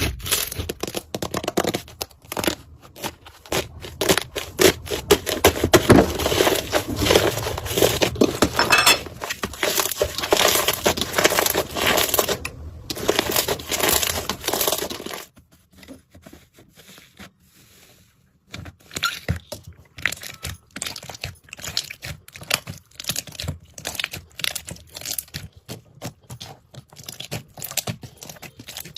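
Slime being squeezed and pressed, making a dense run of crackling, crunching clicks. It pauses for a few seconds past the middle, then resumes more sparsely.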